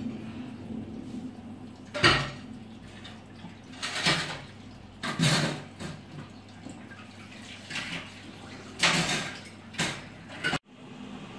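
Heavy rain and floodwater rushing down a street, a steady wash of water noise with several short, louder surges of noise.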